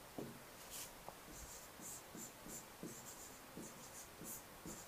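Faint pen strokes on an interactive whiteboard's screen: a string of short scratchy strokes as a word is written by hand.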